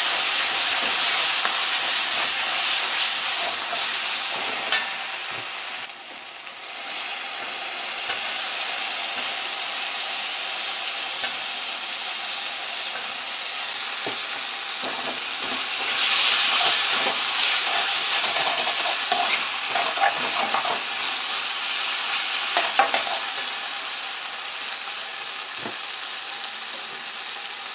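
Curry paste of onion, garlic and spices sizzling as it fries in a metal pot, with a metal spoon scraping and clicking against the pot as it is stirred. The sizzle drops about six seconds in and swells again around the middle.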